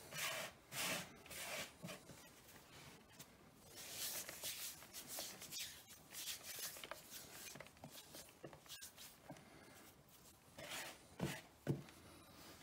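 Hands kneading fresh egg pasta dough on a floured tray: soft, irregular rubbing and scraping of dough and floury hands, with two short thumps a little before the end as the dough is pressed down.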